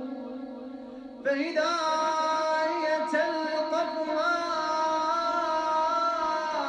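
A man chanting Quranic recitation in a melodic, drawn-out voice, holding long notes. About a second in he pauses briefly and starts a new phrase on a higher pitch, louder.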